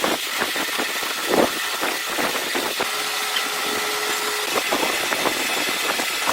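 A machine running steadily, with a hiss and irregular clicks and knocks over it; a steady tone joins it for about a second and a half midway.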